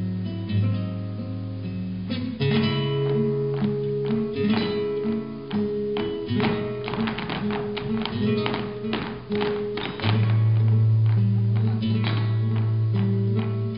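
Flamenco guitar playing tarantos, mixing plucked notes with strummed chords. A run of quick, sharp percussive strikes comes through the middle, and the music swells louder near the end.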